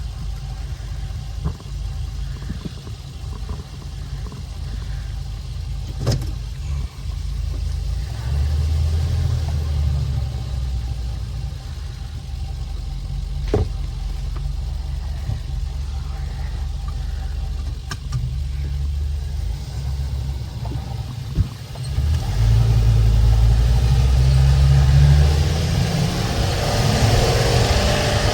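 A 2014 Ford E-450 ambulance with a 6.8L V10 gas engine driving on a road test after its misfire codes were cleared. A steady low engine and road rumble swells for a couple of seconds about a third of the way in and again for a few seconds near the end. A few sharp knocks come along the way.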